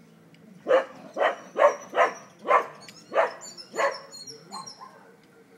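A dog barking, a quick run of seven loud barks about two a second, followed by faint, short, high chirping.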